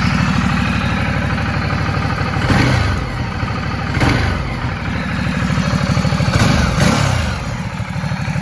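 A 2013 Ducati Multistrada 1200 S Pikes Peak's L-twin engine, fitted with a Termignoni exhaust, idling with a pulsing beat. It is blipped four times: once about two and a half seconds in, again at four seconds, and twice in quick succession near the end. Each rev rises quickly and falls back to idle.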